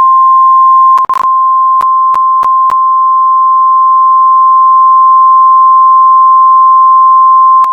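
A loud, steady single alert tone of about 1 kHz, the attention signal of a mock Emergency Alert System broadcast. A few brief clicks break it between one and three seconds in, and it cuts off abruptly at the end.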